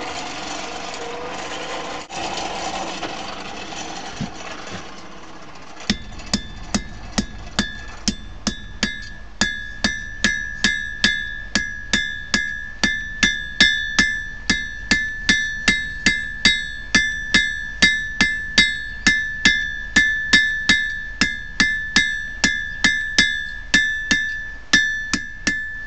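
Blacksmith's hammer striking hot steel on an anvil, about two to three blows a second, each with a clear anvil ring, as the end of a file is drawn out for a striker. For the first six seconds, before the hammering starts, a steady whirring, typical of a hand-cranked forge blower.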